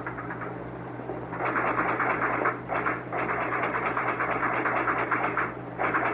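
Rapid mechanical clattering of fire alarm office telegraph equipment, running in stretches broken by short pauses, over a steady electrical hum.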